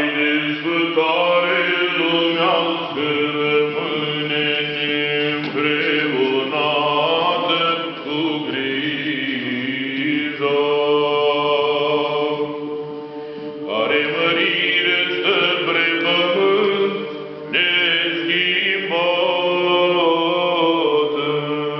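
Orthodox funeral chant sung by several voices, with a low held drone note under a melody that moves in phrases.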